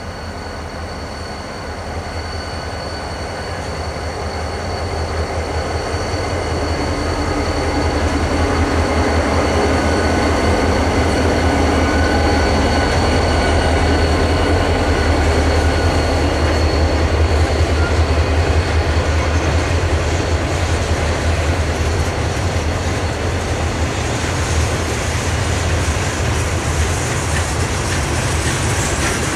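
Diesel-hauled freight train passing: a low rumble that builds over the first several seconds as the locomotives draw near, then the freight cars rolling by on the rails. A thin, steady, high wheel squeal runs through the first half.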